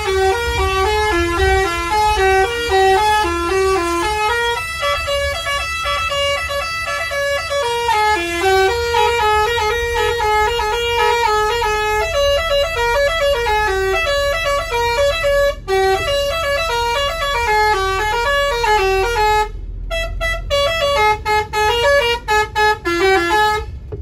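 Bus telolet basuri horn, a multi-tone air horn, playing a continuous tune of short notes that step up and down, over the low rumble of the bus engine. Near the end the tune breaks off abruptly several times, then stops.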